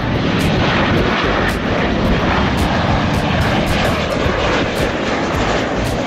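Jet airliner engines, a loud, steady rushing noise from a Boeing 737 flying low with its landing gear down on approach.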